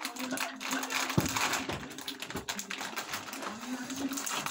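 Plastic snack packets crinkling and crackling as they are handled and torn open, with crunchy snacks being eaten; a sharp snap about a second in.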